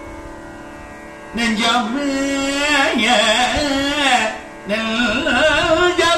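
A man singing a Tamil devotional verse in Carnatic style into a microphone, with long ornamented, wavering held notes. The voice comes in about a second in, breaks off briefly past the middle, then resumes, over a faint steady drone.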